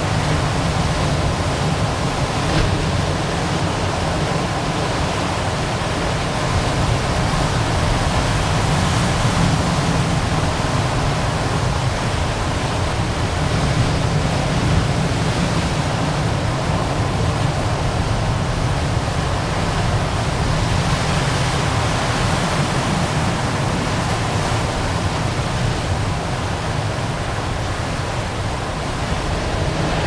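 Ocean surf rolling in and breaking onto rocks, a steady, continuous rush of water with a deep low rumble beneath it.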